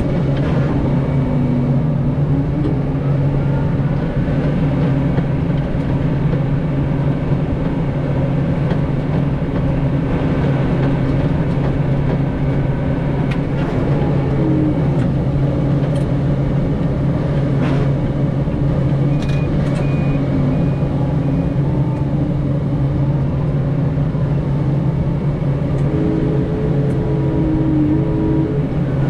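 Farm tractor engine running steadily with a low drone, with short higher tones shifting in pitch now and then.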